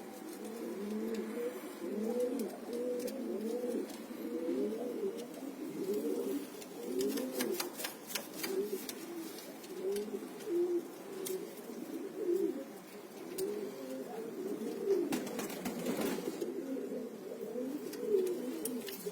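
A loft of cock pigeons cooing, many overlapping coos rising and falling all the way through, with scattered sharp clicks.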